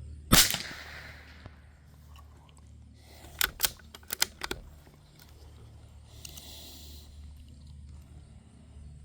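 A single shot from a Savage Mark II FV-SR bolt-action .22 LR rifle about a third of a second in, a sharp crack with a short ring-out. About three seconds later comes a quick run of metallic clicks as the bolt is worked to eject the spent case and chamber the next round.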